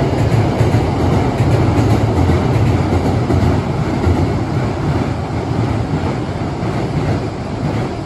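Hankyu 1000 series eight-car electric train running over a steel girder railway bridge with a loud, low rumble. The rumble fades from about halfway through as the last cars pass and the train moves away.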